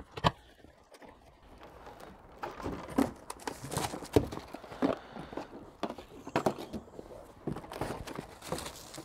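A cardboard bike box being opened and its packaging handled: irregular knocks and clatters with rustling in between.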